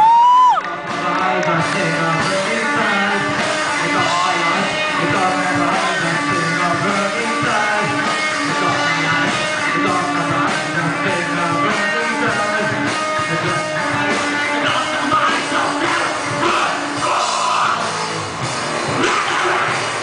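Live rock band playing loud through the PA: electric guitars, bass, drums and a lead singer on the microphone. A brief loud squeal rises in pitch at the very start.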